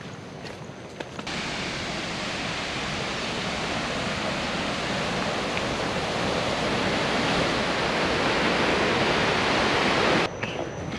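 Steady rushing roar of a waterfall, growing gradually louder and then cutting off abruptly near the end. A few faint footsteps on the trail come just before it begins.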